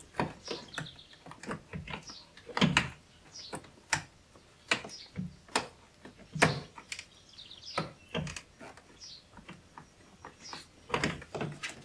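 Irregular clicks and knocks of a plastic car door trim panel being handled while its wiring connectors are plugged back in, with short high chirps in between.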